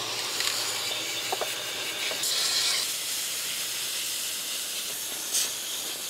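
Garden hose with a brass spray nozzle spraying water onto a robotic pool cleaner and its mesh filter basket to rinse off debris: a steady hiss of water spray, louder for about half a second midway and briefly again near the end.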